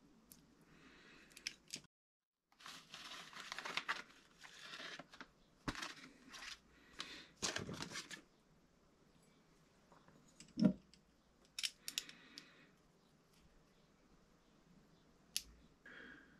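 Hands handling small parts at a workbench: spells of crinkling, rustling handling noise with light clicks and taps of small parts. A single dull knock about ten seconds in is the loudest sound.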